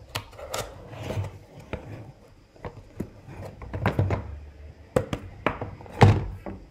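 Cardboard box being handled: light taps, rubs and knocks of the box and its lid, ending with a heavier thump about six seconds in as the box is set down on a wooden table.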